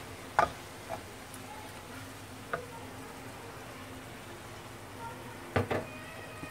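Minced meat frying quietly in a ceramic-coated pan, a faint steady sizzle, with a few knocks of a wooden spatula against the pan about half a second in and a louder quick cluster of knocks near the end.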